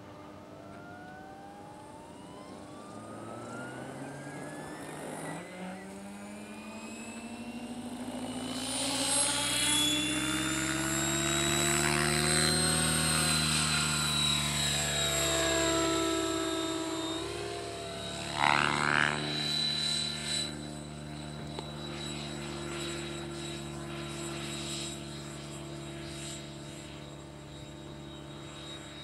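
Radio-controlled 3D model helicopter: its motor and rotor whine rises steadily in pitch and loudness over the first ten seconds or so, then shifts up and down as it manoeuvres, with a brief loud burst of rotor noise about 18 to 19 seconds in, settling to a steadier hum near the end.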